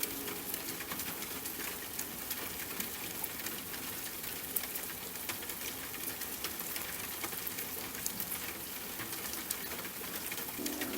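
Steady rain with many small drops pattering, no music over it.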